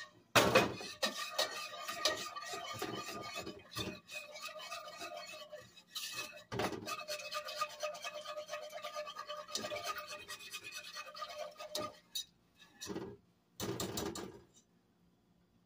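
Wire whisk beating rapidly against the inside of a metal saucepan as a thin sauce is stirred, a continuous scraping with a faint ring from the pot. It stops about 12 s in, then returns as a couple of short strokes near the end.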